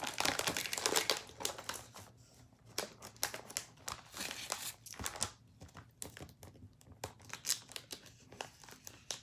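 Crinkling and rustling of gift packaging and paper being handled, in irregular bursts, busiest in the first two seconds.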